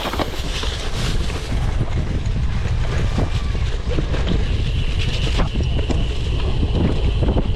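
Wind buffeting the camera microphone of a cyclocross racer riding at race pace, a dense steady rumble that swells at the start and then holds.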